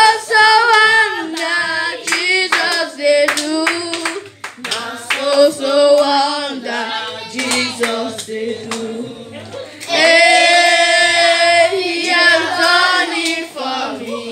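A girl singing into a handheld microphone, with other voices joining in and hand claps keeping time through most of the first ten seconds. About ten seconds in, the singing turns loud and is held steady for a couple of seconds.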